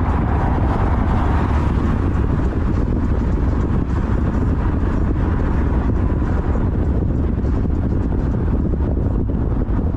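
Steady road and wind noise of a car driving at speed, a deep rumble with a hiss over it. A car passing alongside swells briefly in the first couple of seconds.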